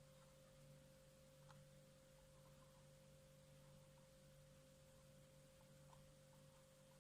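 Near silence: room tone with a faint, steady electrical hum and a few faint ticks.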